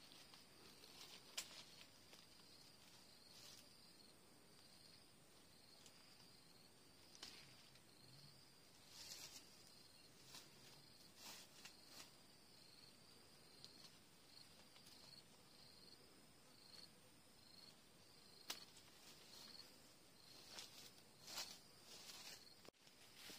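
Faint insects chirping in a steady, evenly pulsed rhythm over a high steady trill. Short scattered rustles and snaps of leaves and twigs come as oranges are pulled off the tree by hand.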